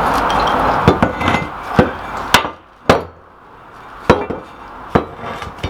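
About seven sharp knocks and clanks of heavy iron vise parts being handled and knocked together, irregularly spaced. For the first two and a half seconds they sit over a steady rushing noise that then stops abruptly.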